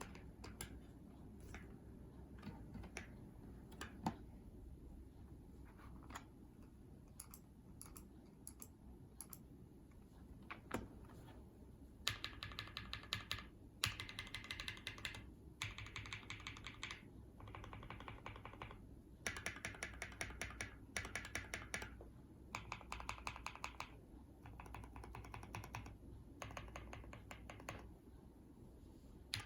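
Typing on a 60% mechanical keyboard with lubed Durock POM linear switches, a polycarbonate plate and an aluminum Tofu 60 case. Scattered single keystrokes at first, then from about halfway in, fast runs of typing lasting a second or two, with short pauses between.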